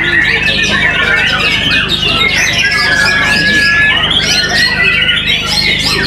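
White-rumped shama singing fast, varied whistled phrases and trills, with a held whistle near the middle, over a dense chorus of other caged songbirds singing at the same time.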